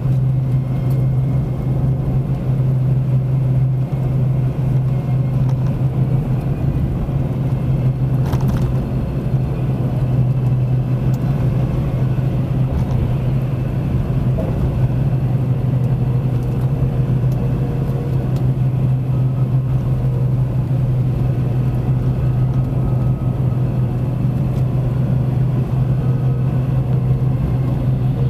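Steady in-cabin car road noise while driving on a wet road: a constant low drone from the engine and tyres under a hiss of road noise, with one brief click about eight seconds in.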